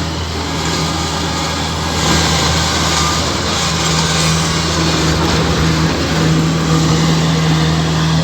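Rice harvesting machine running steadily: a constant low engine hum with a wash of mechanical noise over it.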